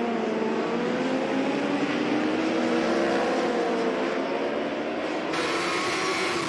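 Several endurance-racing superbikes running at high revs, their engine notes overlapping and shifting in pitch as they pass. About five seconds in, the sound changes abruptly to a single bike's engine heard from its onboard camera.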